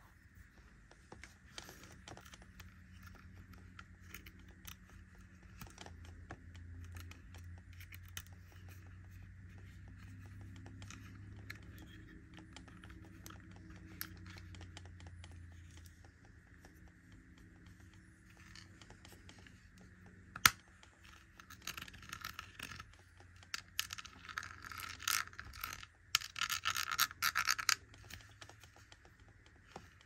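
Fingers and nails tapping and scratching on an ornate enamelled metal compact case, with small handling clicks and one sharp click about two-thirds of the way through. The scratching grows denser and louder near the end.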